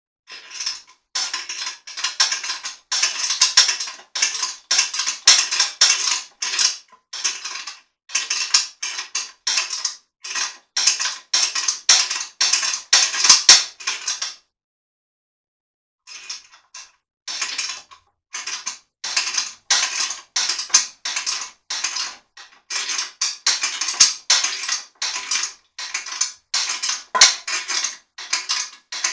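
A hand-worked mechanism clicking and rasping in repeated strokes, about two a second, pausing for a couple of seconds about halfway through.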